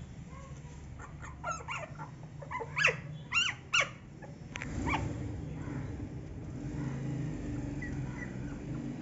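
Two-week-old Labrador puppies whimpering: a quick run of short, high-pitched calls that rise and fall, in the first half. A steady low hum continues underneath afterwards.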